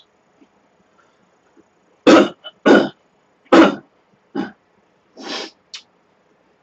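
A man coughing into his hand: three loud coughs about half a second apart starting about two seconds in, then a weaker cough and a short, breathy rasp near the end.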